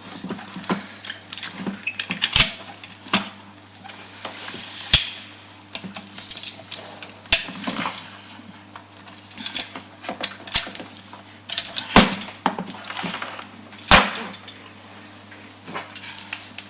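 Irregular clicks and metallic clinks of small tools and parts being handled on a workbench, over a steady low hum.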